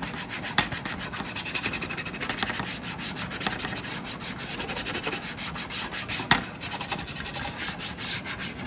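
Green scouring pad scrubbing rapidly back and forth over the plastic frame of an HP printhead cleaning cassette, cleaning off ink residue: a continuous scratchy rubbing, with two sharper knocks.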